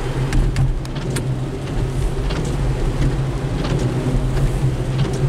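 Steady low drone of a car's engine and tyres on a wet road, heard from inside the cabin, with scattered raindrop taps on the windshield.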